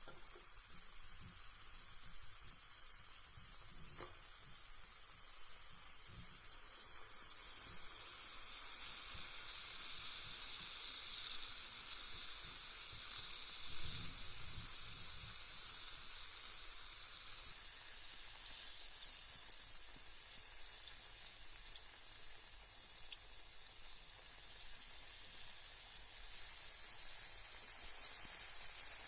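Carbonated bath bomb fizzing in bathwater: a steady high hiss of bubbles that swells about a quarter of the way in, with a couple of faint clicks.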